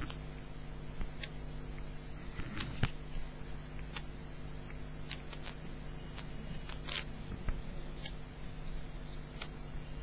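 Room tone: a steady low hum with scattered small clicks and taps, about one a second, irregular.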